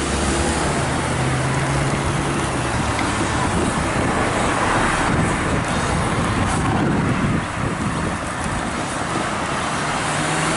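Road traffic at a railway level crossing: cars driving over the crossing once the boom gates are up, a steady rush of tyres and engines. A low steady hum sounds in the first couple of seconds.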